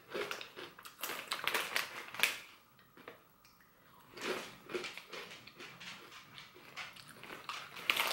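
Crunching and chewing of crisp Bissli pizza-flavoured wheat snacks, in bursts during the first two seconds and again about four seconds in, with the plastic snack bag rustling.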